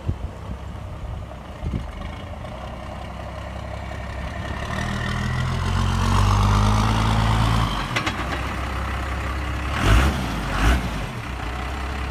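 Dodge Ram pickup's 5.9 L Cummins inline-six turbo diesel running as the truck drives up close, its low engine note growing louder and then dropping off suddenly about eight seconds in. Two short thumps follow near the end.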